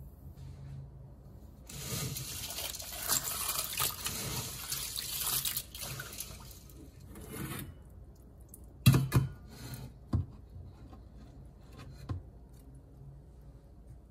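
Kitchen tap water running and splashing over hands in a steel sink for about six seconds, then stopping abruptly. A few seconds later come a couple of sharp knocks and splashes, the first of them the loudest sound here.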